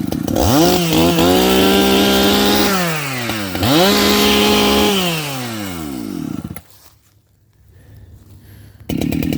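Two-stroke gas chainsaw warming up: it idles, is revved up twice, each rev held for a couple of seconds and then let fall back. Near the end it idles again after about two seconds in which the sound drops out almost completely.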